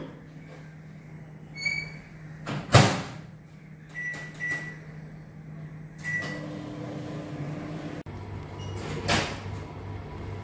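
Countertop microwave oven being worked: a beep, then the door shutting with a loud knock, followed by three short keypad beeps, after which the oven starts and runs with a low steady hum. Another knock comes near the end.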